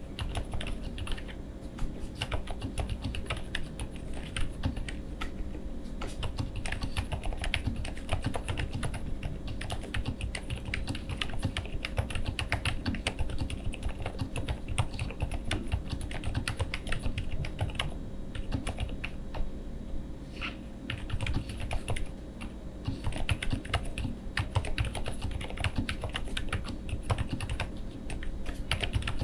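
Continuous fast typing on a full-size custom mechanical keyboard (Qwertykeys QK101) with lubed Lucy R5T switches, tuned Staebies stabilizers, GMK Carbon R2 keycaps and full foam dampening, giving a dense run of key clacks that thins briefly about two-thirds of the way through.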